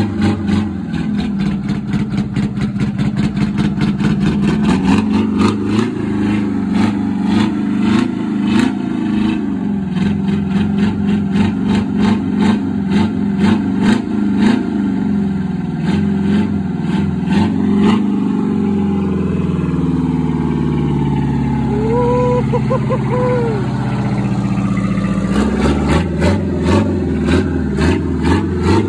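1972 GMC Astro cab-over truck's V8 diesel engine running just after being started on a booster box, revved up and down with rough, sharp knocks. It settles to a lower, smoother idle around 20 seconds in, then revs up again near the end.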